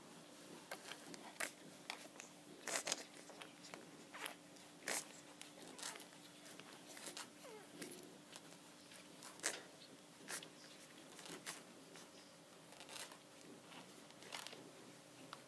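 Newborn Shih Tzu puppies suckling at their mother: faint, irregular smacking clicks, sometimes a few close together.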